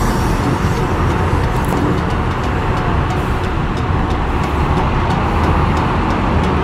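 Steady low rumble of heavy road traffic and diesel truck and bus engines, heard from on board a bus crawling alongside trucks.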